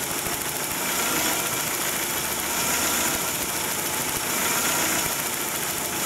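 Dodge Neon four-cylinder engine idling while cylinder two's spark is shorted to ground through a test light in a cylinder drop test. The idle speed changes a lot, the sign that cylinder two is contributing well, unlike the misfiring cylinder one.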